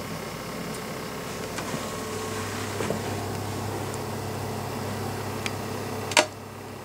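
Indoor room tone with a low steady mechanical hum that comes up about two seconds in, a few light clicks, and one sharp click near the end.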